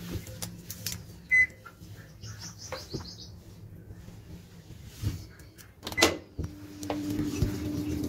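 Top-load automatic washing machine: a short electronic beep about a second in, a few quick high chirps, a couple of clicks, then from about six seconds a steady low hum as water runs into the drum.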